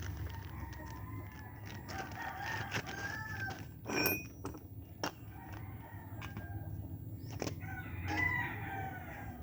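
Two drawn-out pitched animal calls, each rising and falling over a second or so, one a couple of seconds in and one near the end, over a low steady hum. A sharp click about four seconds in.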